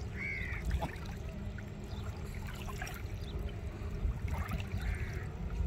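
Small waves lapping and washing on the muddy bank of a tidal creek, over a steady low rumble.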